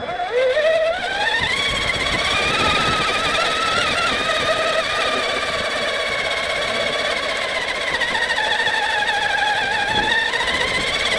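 Traxxas Summit RC truck's electric motor and drivetrain whining under throttle. The pitch rises quickly over the first second or so, holds high, sags a little about eight to ten seconds in, then climbs again near the end.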